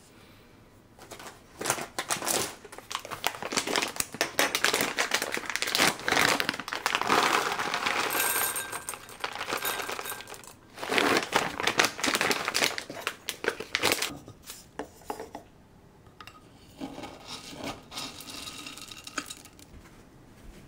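Dry cat food kibble poured into a glass jar on a kitchen scale, rattling and clicking against the glass, mixed with the crinkling of the food bag. It comes in several bursts, then gives way to quieter handling near the end.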